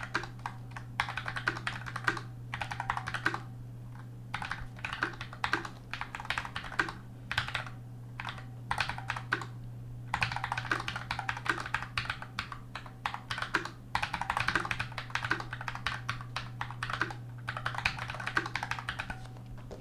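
Typing on an Armaggeddon SMK12R keyboard with Outemu low-profile red switches. These are light linear switches, so there are only soft key presses and bottoming-out clatter with no click, in bursts with short pauses. A steady low hum sits underneath.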